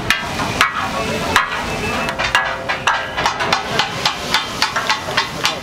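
Flat metal spatulas clanking against large steel griddles as they chop and mix kat-a-kat, quick uneven strikes two or three a second from several cooks at once. This is the clatter that gives the dish its name.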